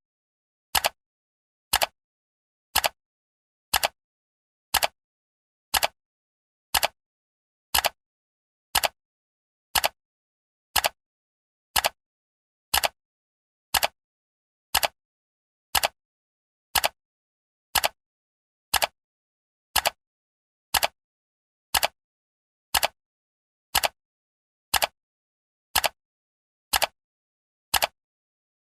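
Clock ticking: a single sharp tick once a second, evenly spaced, with silence between ticks.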